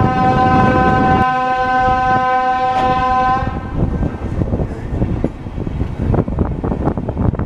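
Train horn sounding one steady blast of about three and a half seconds, then dying away. Underneath, the rumble and rattle of the train running, with wind on the microphone.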